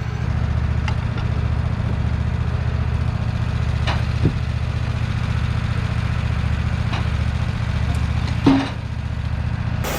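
Small gasoline engine of a Wood-Mizer LT15WIDE portable sawmill running steadily at idle, with a few faint knocks.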